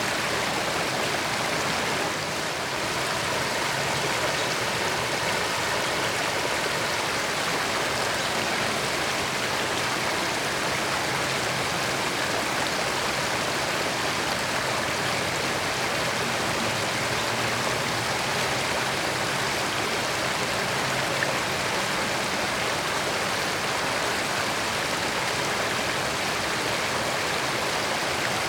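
Creek water running over rocks: a steady, even rush and babble.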